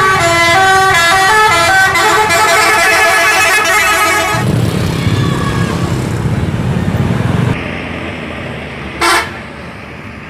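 Bus multi-tone musical horn (Indonesian 'telolet' horn) playing a quick melody of stepping notes for about four seconds. A low engine rumble follows, with one short horn toot near the end.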